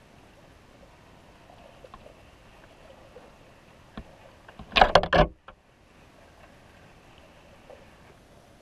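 Underwater sound beside a baited crab trap: a faint steady hiss with scattered small ticks, then, about five seconds in, a brief cluster of several loud knocks lasting about half a second.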